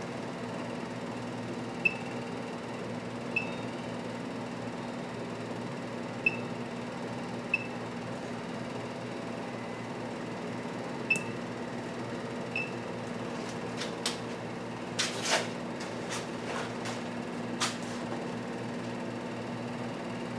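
Steady hum of workshop machinery at the mill, with short high electronic beeps in three pairs about a second and a half apart. Several sharp metallic clicks and knocks follow in the last third.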